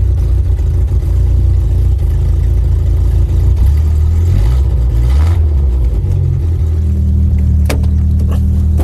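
Old pickup truck's engine running just after a cold start, its speed rising and falling about halfway through, then settling into a steady idle. A few sharp clicks near the end.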